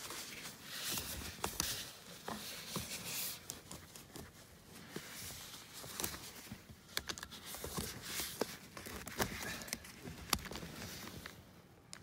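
Paper tissue rubbing and rustling against a plastic seat-belt buckle as old lithium grease is wiped off, with a few sharp clicks from the buckle being handled.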